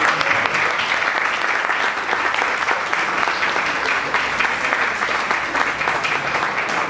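Audience applauding with dense, steady clapping that continues without a break.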